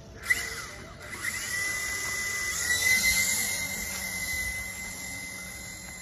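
Toy RC helicopter's small electric motors and rotor blades whining at a steady high pitch as it lifts off and climbs. The whine starts suddenly about a third of a second in, swells over the next two seconds, then eases a little.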